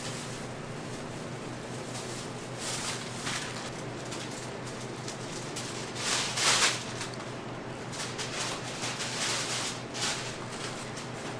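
A spatula scooping and spreading whipped cream onto a waffle held in a plastic sheet: soft scraping and plastic crinkling in short bursts, the loudest a little past the middle, over a steady low hum.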